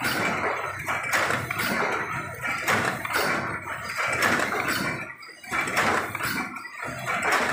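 Paper cup forming machine running, a rapid, uneven clatter of quick mechanical knocks as its rotary turret indexes and the forming stations stamp. The clatter dips briefly about five seconds in.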